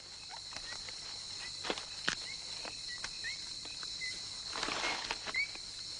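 Steady high insect chorus of tropical forest, with scattered sharp snaps, a few short high chirps, and a brief rustle about five seconds in.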